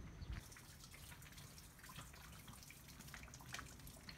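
Near silence: faint outdoor ambience with scattered light ticks.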